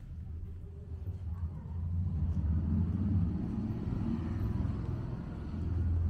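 A car driving past on the street: a low rumble and tyre noise that swells about two seconds in and then eases off.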